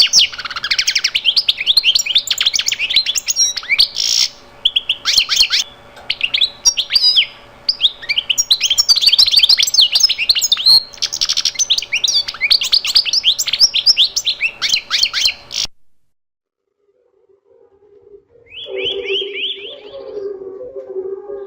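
Many birds chirping and twittering rapidly, cutting off abruptly about 16 seconds in. After a brief silence a lower, wavering sound comes in near the end, with short bursts of high chirps.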